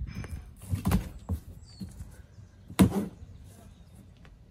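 Cardboard shipping box being handled and opened at the taped lid: a few knocks and scrapes, the loudest a sharp knock about three seconds in.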